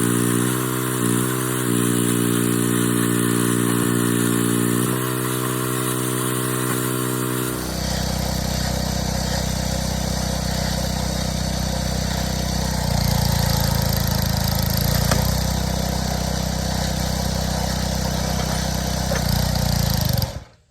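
Small gasoline engine running steadily, with two brief dips in speed about a second in. About seven and a half seconds in the sound changes to a lower, deeper running, and it cuts off abruptly at the end.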